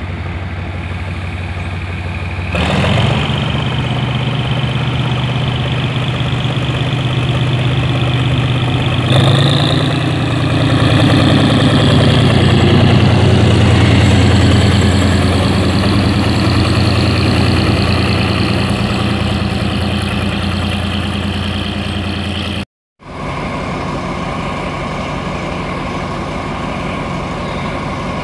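GE GEK-class diesel-electric locomotive 4042, running light, with its engine throttling up in two steps, about three and nine seconds in, as it pulls away past. After a short break, another diesel locomotive, the Alsthom AHK 4212, runs steadily at the head of its tank train.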